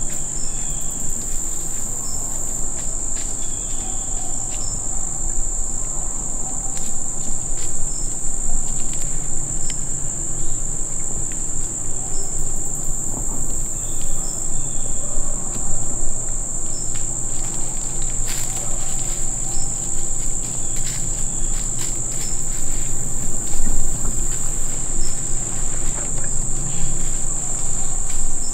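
Chorus of insects making a steady, high-pitched drone that never lets up, with faint scattered rustles and clicks beneath it.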